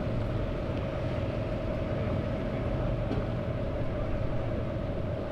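A steady, unchanging low engine drone with a constant hum above it.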